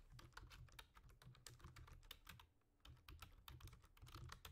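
Faint typing on a computer keyboard: a quick, irregular run of key clicks, with a brief pause a little past halfway through.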